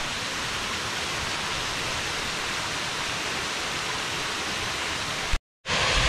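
Steady rush of a small waterfall and creek water spilling over a rock ledge, broken by a brief total dropout near the end.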